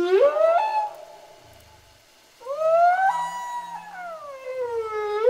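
An animal's long wailing calls, each rising and then falling in pitch, with a pause of over a second between them and a new call starting near the end.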